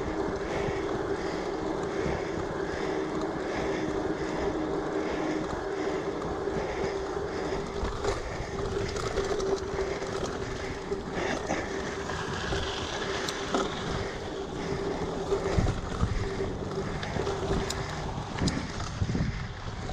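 Giant Fathom mountain bike rolling along, with tyre noise and wind on the microphone and a steady hum. From about halfway through, short knocks and rattles come in as it rides over rougher dirt track.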